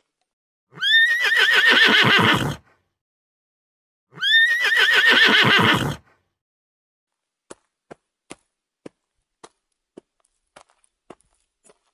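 Horse whinnying twice, each call about two seconds long with a quavering pitch. These are followed by a run of faint sharp clicks, about two a second.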